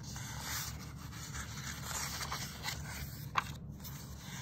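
Paper pages of a picture book being handled and turned, a steady rustling and rubbing with one sharp click a little over three seconds in.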